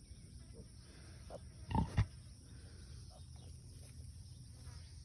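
A sow that has just farrowed grunts twice in quick succession about two seconds in, after a softer grunt just before.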